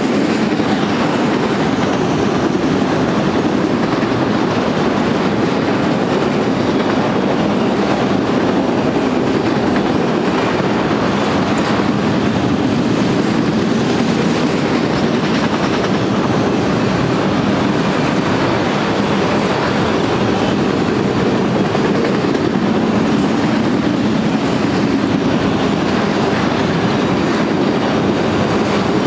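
Auto-rack freight cars rolling past on steel rail: a steady, unbroken wheel-on-rail noise with occasional faint clicks.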